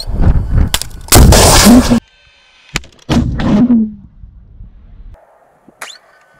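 Portable anti-tank guided missile launcher firing: two loud launch blasts with a rushing hiss, about a second in and about three seconds in, the first cut off abruptly.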